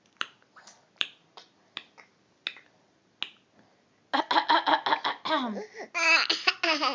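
A series of about eight sharp clicks or taps, a few per second, followed from about four seconds in by a baby laughing in rapid pulsing bursts.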